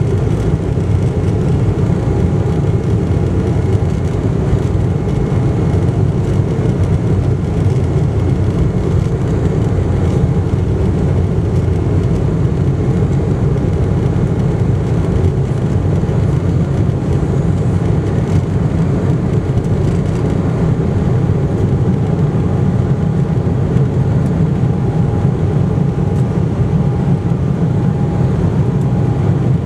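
Cabin noise of an Embraer 195 airliner on its takeoff roll and lift-off: the GE CF34-10E turbofan engines at takeoff power make a loud, steady rumble mixed with runway and airflow noise, with a faint steady hum above it.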